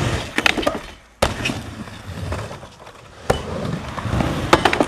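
Skateboard wheels rolling on a plywood mini ramp, the rumble swelling and fading with each pass, broken by several sharp clacks of the board hitting the deck and coping.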